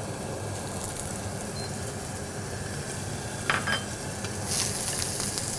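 Halibut fillet and pak choy frying in oil in a wok, a steady sizzle with a few crackles. The sizzle grows louder about four and a half seconds in.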